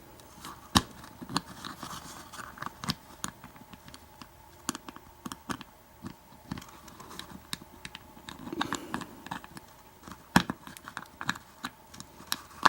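Scattered metallic clicks, taps and small scrapes of hand tools working at an old American 700 series padlock, trying to get its retaining clip off to take the lock apart, with a few sharper knocks along the way.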